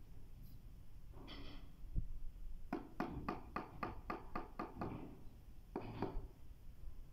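Rubber mallet tapping a ceramic floor tile to bed it into the mortar: a quick run of about ten taps, roughly four a second, a little under halfway through.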